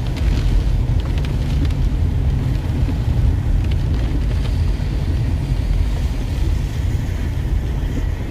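Car driving in rain, heard from inside the cabin: a steady low rumble of engine and tyres on the wet road, with a few faint ticks of rain hitting the windshield.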